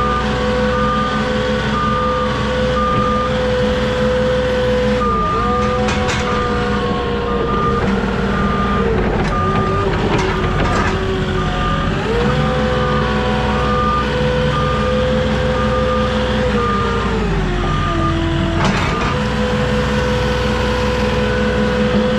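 Truck-mounted forklift running, with its reverse alarm beeping about twice a second. The beeping stops briefly after a few seconds and again near the end, and the engine note drops and comes back up a few times as the machine maneuvers.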